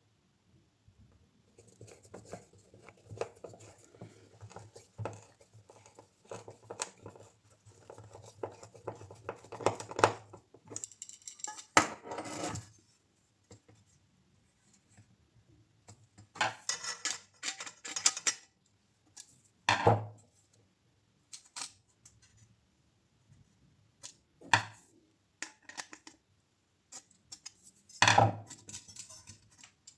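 Workshop handling noises: a run of scraping and clicking, then a few separate sharp knocks and clatters as small wooden and metal parts are handled and set down.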